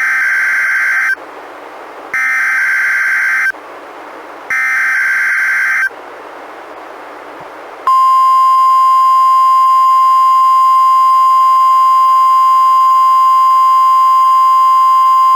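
NOAA Weather Radio alert signal: three data bursts of the SAME (Specific Area Message Encoding) digital header, each about a second and a half long with a second's gap between, then about eight seconds in the steady 1050 Hz warning alarm tone begins and holds. The tone is the signal that sets off weather radio receivers' alarms, here sent as a test.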